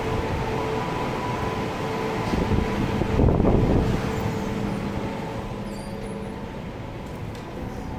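Steady rush and hum of the air-curtain blowers above the metro exit doors, with a louder gust of air about three seconds in as a door is pushed open and passed through; the noise then fades.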